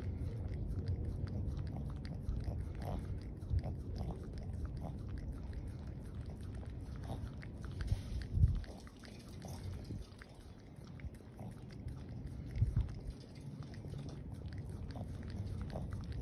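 A small long-haired dog licking a fresh cut on a person's forearm: quick, wet lapping and smacking clicks from its tongue. Two louder low thumps come about halfway through and again a few seconds later.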